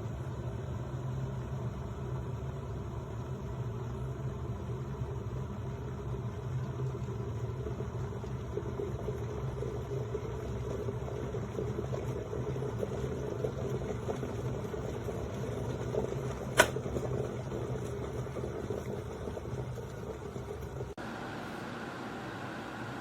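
Severin glass electric kettle heating water, a steady rumbling hiss, with a single sharp click about two-thirds of the way through. Near the end the sound changes abruptly to a thinner hiss.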